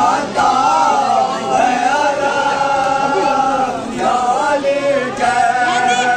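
Men's voices chanting a nauha, a Shia Muharram lament, with long held notes.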